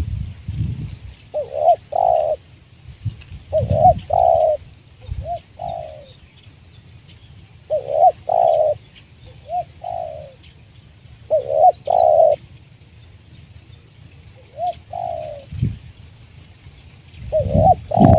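Spotted dove cooing: short groups of two or three hoarse coos, repeated every few seconds. There are irregular low thuds at times.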